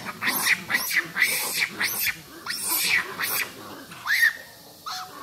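Long-tailed macaques screaming: a fast series of about a dozen loud, shrill calls, each rising and falling in pitch, spacing out and fading toward the end.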